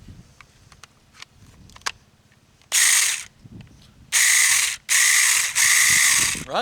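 Saker 20-volt battery mini chainsaw run unloaded in four short trigger pulls, the motor and chain whirring up to speed each time, with a few light handling clicks before the first run.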